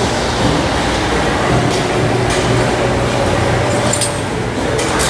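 Steady gym background noise: a continuous low hum and rumble, with a few faint metallic clinks near the end.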